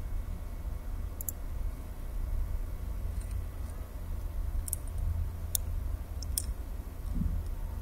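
Several sharp computer mouse clicks, about five or six spread over the seconds, over a steady low electrical hum.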